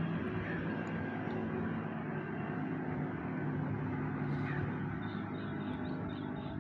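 Steady drone of road traffic on the highway bridge overhead, a low engine hum with a faint hiss.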